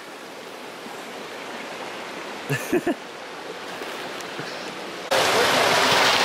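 Steady rushing of flowing water, with a couple of brief faint voices around the middle. About five seconds in it jumps to a louder, brighter hiss of water running and splashing at a natural hot spring pool.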